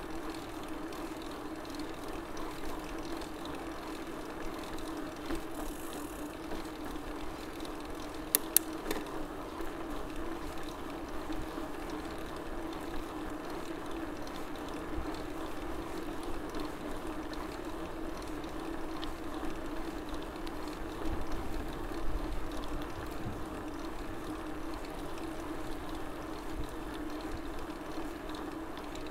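BMC mountain bike rolling along a street with a steady hum, and two sharp clicks close together about eight seconds in.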